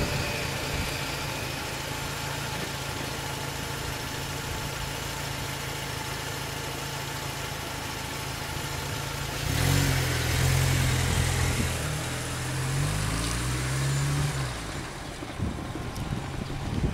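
Car engine idling steadily. About nine seconds in, a car pulls away: its engine grows louder and its pitch rises and falls through several gear changes for a few seconds.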